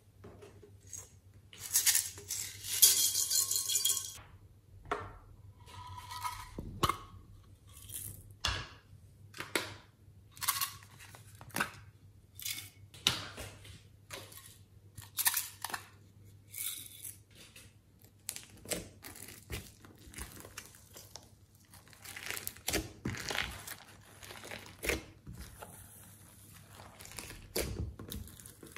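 A run of sharp plastic clicks and taps as small plastic topping containers are handled beside a tray of glitter-covered slime, with a dense crackling rattle about two seconds in.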